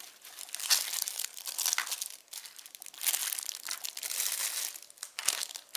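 Clear plastic packaging crinkling in irregular bursts as bagged squishy toys are handled.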